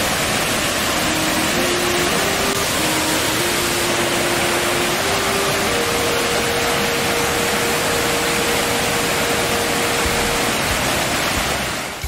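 Steady, even rush of a waterfall cascading over rocks, with a faint slow melody of long held notes underneath.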